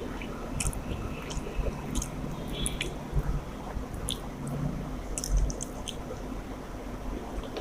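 Close-up eating of rice and spicy chicken curry: wet, squishy chewing with scattered small mouth clicks and smacks, and a couple of soft thumps.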